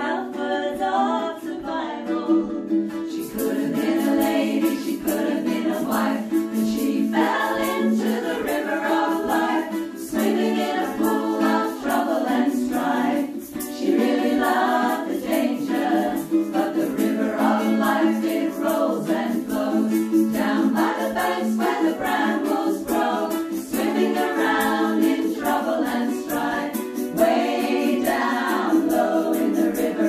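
A small vocal group singing a folk song together, accompanied by a strummed string instrument.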